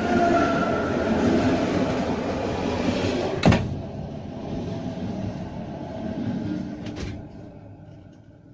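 A passenger train passing on the adjacent track, heard from inside a locomotive cab: its wheel and running noise swells, stays loud for a few seconds with a slightly falling tone, then fades away. A sharp knock cuts through about three and a half seconds in, and a fainter double knock comes near the end.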